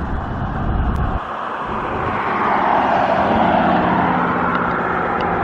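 Steady rushing hum of passing road traffic, swelling about two to four seconds in, with a low rumble in the first second.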